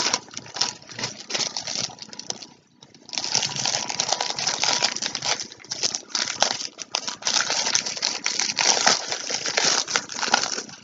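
Plastic packaging crinkling and rustling as a mailer bag and face-mask sachets are handled and rummaged through close to the microphone, with quick irregular crackles and a short pause about two and a half seconds in.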